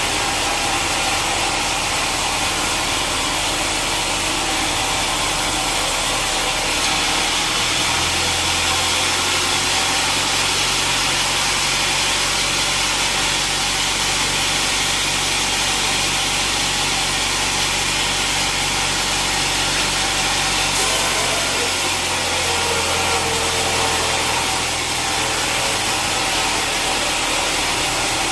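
Sawmill saw running steadily as it cuts a teak log, with a steady hiss and a low hum; the hum grows heavier from about a quarter of the way in until near the end.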